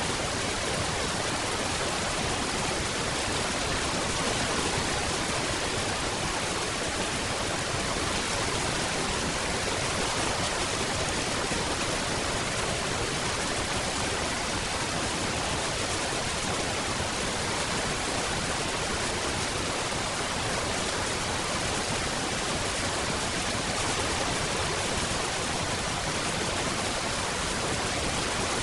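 Steady rainfall, an even hiss with no separate drops, thunder or other events standing out.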